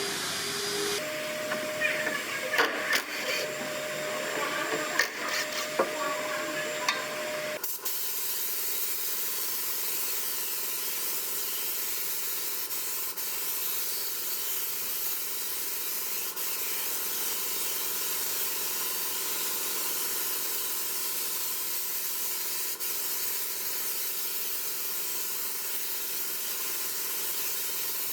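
Irregular clicks and knocks for the first several seconds. Then, about eight seconds in, a steady spraying hiss begins and runs on evenly, as from a cleaning spray nozzle working on the air-conditioning system.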